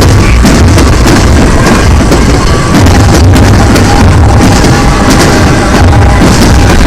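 Very loud, overloaded mix of festival music and a rapid string of firework bursts, the bangs following close on one another with a heavy steady low rumble beneath.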